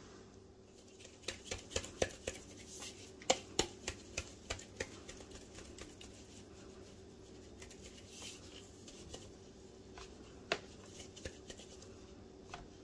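Gloved hands handling a round aluminium baking pan of risen dough: a run of light clicks and knocks in the first few seconds, then a few more near the end, over a faint steady hum.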